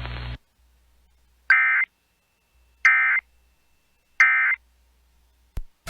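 NOAA Weather Radio SAME end-of-message signal: three short digital data bursts, each about a third of a second long and about a second apart, marking the end of the warning broadcast.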